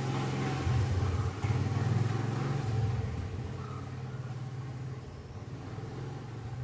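A motor vehicle engine running, a low steady hum that is loudest in the first few seconds and then slowly fades, as if passing by.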